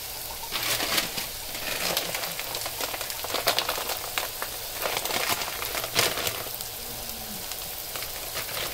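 Chopped onions frying in oil in an aluminium pot, sizzling steadily with scattered sharp crackles.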